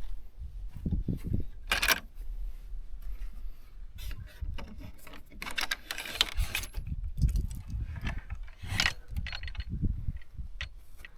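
Irregular clinks, rattles and scraping of things being handled, with low bumps in between; the louder bursts come about two, six and nine seconds in.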